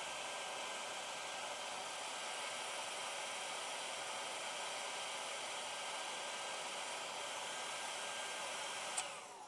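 Conair Pro Style 1250-watt mini hair dryer blowing steadily, drying a dab of paint on a test card. Near the end there is a click and the blowing dies away.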